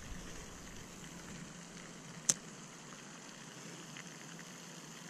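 Faint steady outdoor background hiss with a low hum under it, broken by a single sharp click a little over two seconds in.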